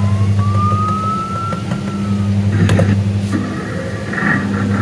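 Paw Patrol fire truck kiddie ride playing electronic siren sound effects from its dashboard buttons: a slow rising siren tone that fades out about two seconds in, a click, then a buzzy pulsing effect. A steady low hum from the running ride lies under it all.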